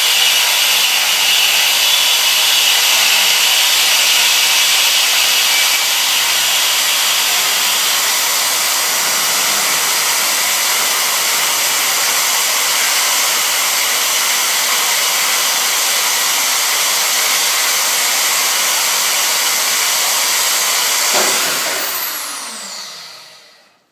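Milwaukee portable band saw cutting through the steel of an old cultivator frame, running steadily under load. About 21 seconds in it stops cutting and the motor winds down with a falling whine.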